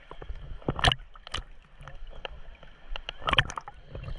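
Sea water lapping and splashing right at the microphone as small waves wash against the camera at the surface, with irregular splashes, the loudest just before a second in and again just past three seconds.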